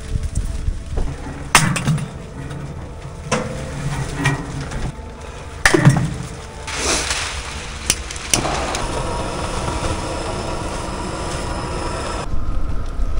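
Several sharp knocks of a hatchet chopping firewood into kindling, then a handheld Nurgaz butane gas torch hissing steadily as it lights kindling in a wood stove. The hiss cuts off near the end.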